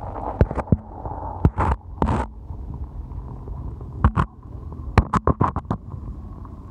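River water heard through a phone microphone held underwater: a muffled low rumble with sharp clicks and knocks scattered through it, several in quick succession about four to six seconds in.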